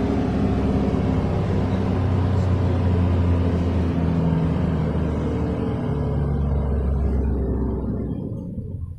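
A motor vehicle's engine running with a steady low rumble and a hiss of noise on top, fading away near the end.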